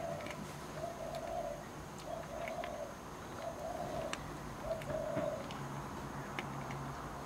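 A dove cooing, five short coos at a steady pace that stop about five and a half seconds in, over scattered sharp little clicks of a kitten crunching chlorella tablets.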